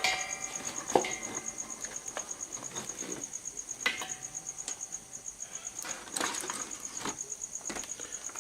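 Insects trilling steadily, a high-pitched chirp pulsing about ten times a second, with a few sharp cracks, the loudest about a second in.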